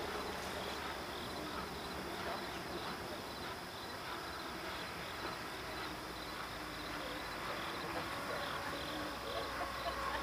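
Insects chirping in a steady, regular rhythm of short high pulses, over a steady low hum.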